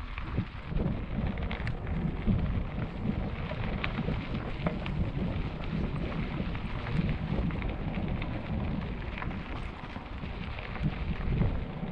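Mountain bike tyres rolling fast over a loose gravel dirt road: a steady low rumble with a constant crunch and many small clicks of stones under the tyres.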